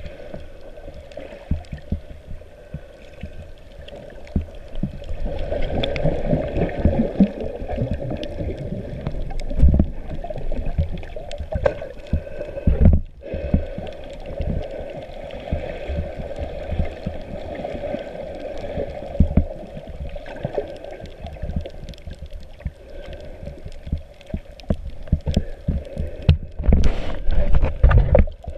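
Muffled underwater noise heard through a GoPro's waterproof housing while snorkeling: a constant dull rush of water with frequent low knocks and thumps as the camera is moved through the water. It grows louder for a couple of seconds near the end.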